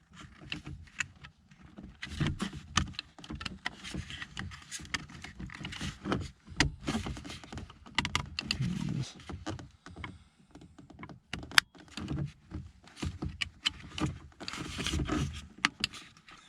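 Hard plastic clicking, knocking and rubbing as a power window master switch is worked into its door-panel housing, its tabs pushed into place one side at a time, with irregular clicks throughout and a sharper snap about twelve seconds in.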